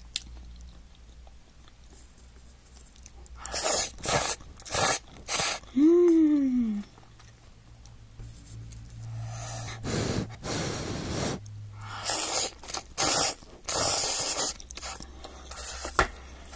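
Instant cup udon noodles being slurped in loud, quick sucking bursts, two clusters of them separated by chewing. Between the clusters come a short hummed vocal sound and a longer breathy rush of air.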